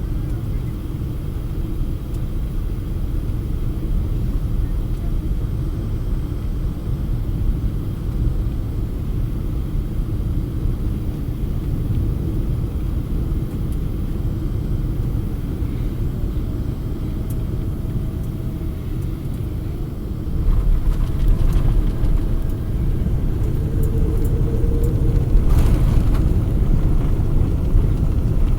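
Steady low rumble of a Boeing 777-200 airliner that grows louder about two-thirds of the way through, with a few faint knocks after the rise.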